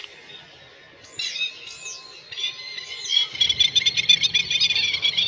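Small birds calling: a few short high calls that rise and fall, then, from about three seconds in, a fast, dense chirping and twittering.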